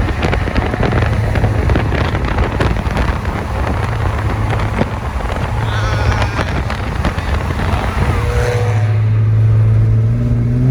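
Infiniti G37's 3.7-litre V6 with an aftermarket exhaust running while driving, under road and wind noise. About eight seconds in the road noise drops away and the engine settles into a steady drone, then its pitch steps up near the end as it revs slightly.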